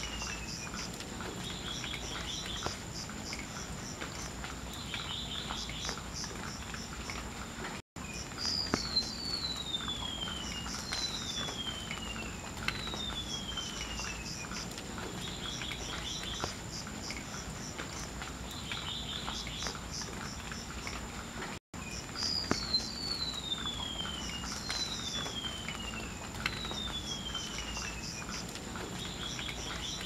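Golden-bellied gerygone singing: a series of thin, high whistles, each sliding downward in pitch, repeated every second or two.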